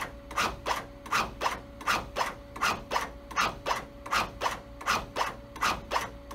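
ZOLL AutoPulse mechanical CPR device doing chest compressions on a mannequin. Its load-distributing band cinches and releases around the chest in a steady, even rhythm of rubbing strokes, a little over two a second.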